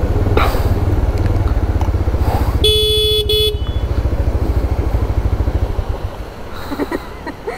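Motorcycle engine running with a fast low throb. About two and a half seconds in, a horn beeps twice, a longer beep then a short one, and near the end the engine sound eases off.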